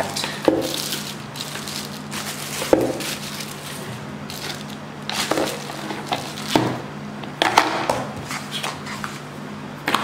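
Plastic wrap crinkling and rustling as a milk frother jug and its parts are unwrapped, with irregular sharp crackles and light knocks of the parts being set down.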